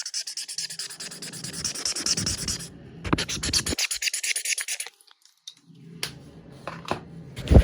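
Felt-tip marker rubbed rapidly back and forth on paper to blend the colour: two runs of fast scratchy strokes, a short pause, then a few light taps and one loud knock near the end.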